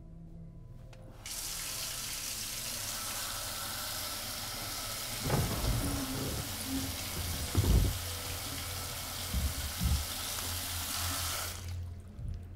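Water running from a bathroom sink tap into the basin: the tap is turned on about a second in and shut off near the end. A few short, low, louder sounds come in the middle, the loudest about eight seconds in.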